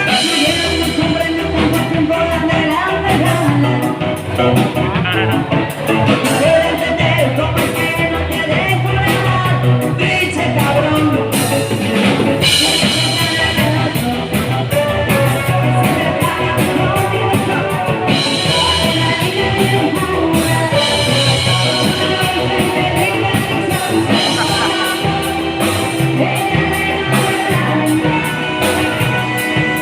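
Rock song with singing over guitar and drum kit, playing steadily.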